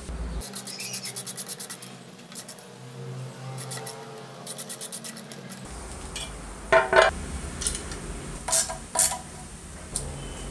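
A run of quick, even metal rasping strokes for the first few seconds, then several loud metallic clanks and clinks as the steel blade guard is fitted onto the metal cut-off saw and fastened by hand.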